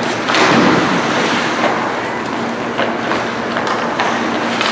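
Ice hockey rink noise: a steady wash of skates on the ice and spectators, broken by a few sharp clicks of sticks and puck.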